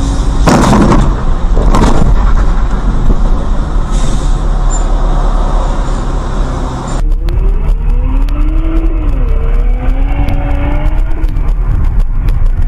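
Driving noise heard from inside a car on a wet road: a steady rush of tyres and engine, with two louder surges in the first two seconds. About seven seconds in, it cuts abruptly to a duller recording of low rumble with a tone that rises and falls.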